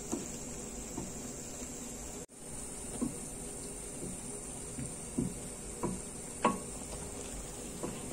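Pot of apricot jam boiling and foaming, a steady hiss with scattered soft pops and clicks.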